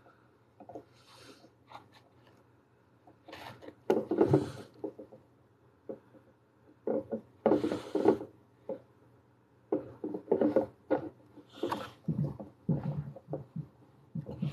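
A clay sculpting tool and fingers working polymer clay on a glass bottle: irregular short bursts of rubbing and scraping, with a few light ticks and knocks.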